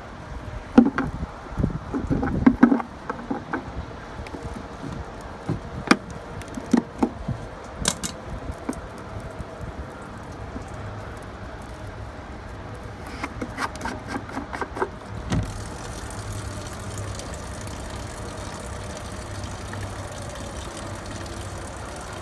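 Clicks and knocks of a hand unscrewing plastic caps from an RV's low-point water drain lines. About fifteen seconds in, a steady low noise sets in and holds as water drains out of the opened line.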